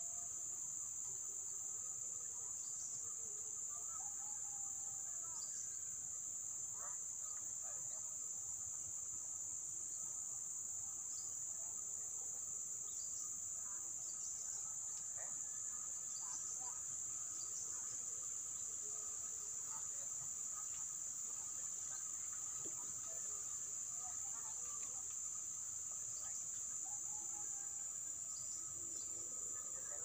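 Continuous high-pitched shrill insect chorus holding steady, with a fainter lower steady tone beneath and faint scattered short chirps and ticks.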